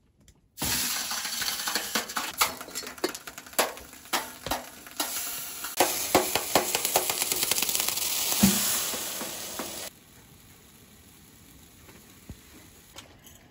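Wet blue enamel percolator sizzling on the hot steel top of a wood stove: water and snow on the pot's outside hiss, crackle and spit against the hot metal. The sizzle starts suddenly as the pot is set down and cuts off abruptly near the end.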